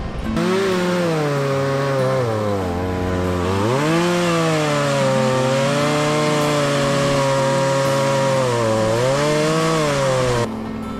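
Two-stroke chainsaw running at high revs while cutting into maple wood. Its pitch sags twice under load in the cut and climbs back each time. The saw's sound breaks off suddenly near the end.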